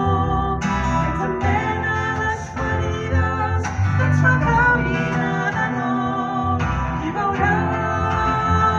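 Live acoustic song: acoustic guitars playing with a woman singing.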